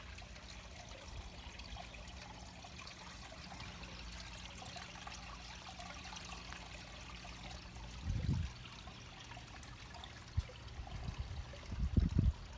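Water trickling steadily into a bog filter pond, with a faint low hum through the first eight seconds. Short low rumbles on the microphone come about eight seconds in, again around ten seconds, and near the end.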